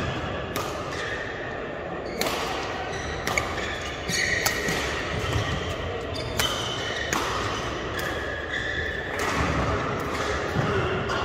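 Badminton play: sharp cracks of rackets striking the shuttlecock every second or two, with shoes squeaking on the court mat, echoing in a large sports hall.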